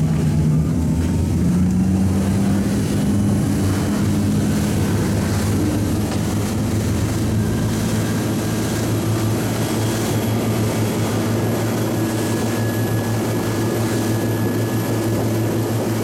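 Engines of a sportfishing boat running at speed, a steady drone over water rushing and spraying past the hull; the engine note rises slightly about two seconds in.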